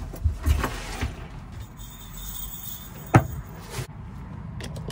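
Soft thumps and knocks of someone climbing and shifting about inside a wooden truck bed camper shell, with one sharp knock about three seconds in.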